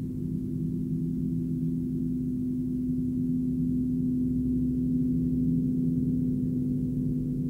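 Dark ambient drone music: a steady low hum of sustained, gong-like tones that swells slightly, with no high sounds.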